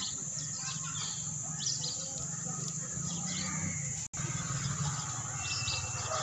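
Outdoor garden ambience: birds chirping in short scattered calls over a steady high insect drone, with a low steady hum underneath. The sound cuts out for an instant about four seconds in.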